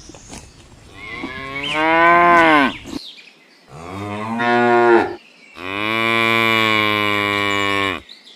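Cattle mooing: three moos. The first two swell and fall away in pitch, and the last is longer, about two and a half seconds, held at a steady pitch.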